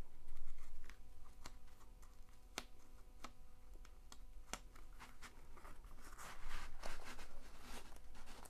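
Hands handling the paper release sheet on a diamond painting canvas: scattered light taps and clicks of fingers on the paper, with rustling as the sheet is pressed and its edge lifted, a little more about six seconds in.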